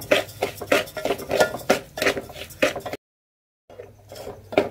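A metal spoon stirring semolina as it dry-roasts in an aluminium pot, scraping and clinking against the pot about four times a second. The sound cuts off sharply about three seconds in and picks up again near the end.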